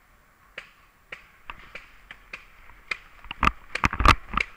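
Paintball markers firing during a game: scattered sharp pops, coming faster and louder in a cluster during the last second and a half.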